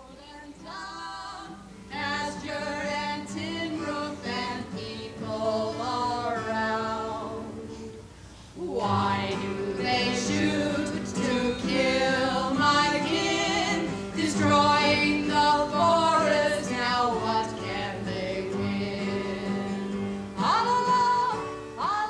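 A woman singing a song with acoustic guitar accompaniment, with a short break in the singing about eight seconds in.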